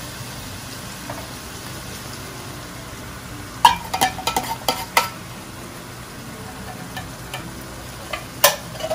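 A pan of food sizzling steadily on the stove. From about three and a half seconds in comes a quick run of sharp metal clicks and scrapes as a spoon scrapes table cream out of a tin can, with one more click near the end.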